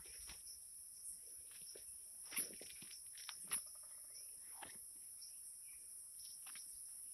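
Steady, high-pitched chirring of insects, with a few light knocks, the sharpest about two and a half and three and a half seconds in.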